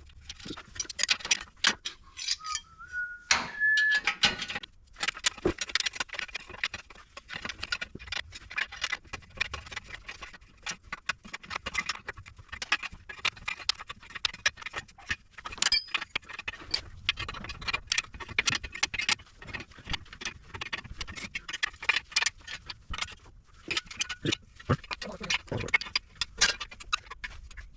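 Metal hand tools clicking and clinking against the exhaust hardware as flange bolts are fitted and worked, with a brief rising squeak about three seconds in.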